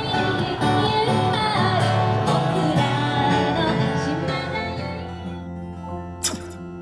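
Music with acoustic guitar and singing, growing quieter about five seconds in, with a single sharp click near the end.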